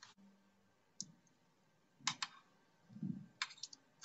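Light, scattered clicks of plastic laptop parts being handled during disassembly: one click about a second in, a quick pair just after two seconds, a soft thump near three seconds, and a short run of clicks near the end.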